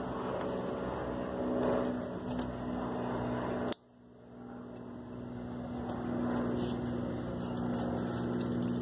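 A steady low mechanical hum with faint scattered clicks of parts being handled. A little over a third of the way through comes one sharp click, the sound cuts out almost completely, then the hum slowly fades back in.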